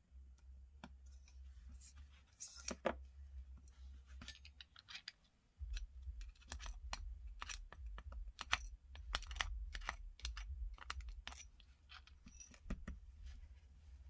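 Irregular small clicks and taps of metal and plastic parts as an automatic out-the-front knife is taken apart, with a small Torx screwdriver working the handle screws and tiny screws being set down on a table.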